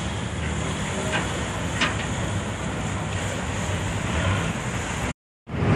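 Boat engine running steadily under a wide rush of water and wind, heard from aboard a moving river boat. The sound drops out for a moment near the end.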